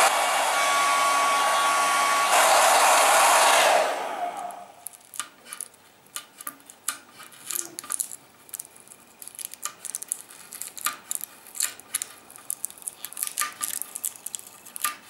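Hair dryer blowing hot air onto a motorcycle fuel tank to soften sticker glue, switched off about four seconds in and winding down. Then a run of small crackles and ticks as the warmed vinyl sticker is peeled away.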